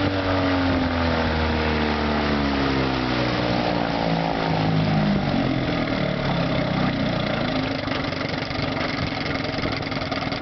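West Bend Muskie 8-horsepower two-stroke outboard motor being throttled back, its pitch falling steadily for several seconds, then settling to a lower, steady idle near the end.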